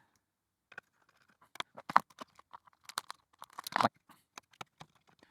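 Scattered plastic clicks and short scrapes from handling an opened ZX Spectrum's case and parts, with a sharper click about two seconds in and a longer scrape near four seconds.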